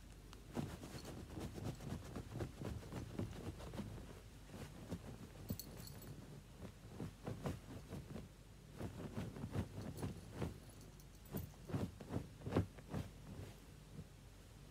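A kitten playing on a bed: irregular soft thumps and rustling as it pounces on and tugs at a cotton bed sheet, busiest in the second half.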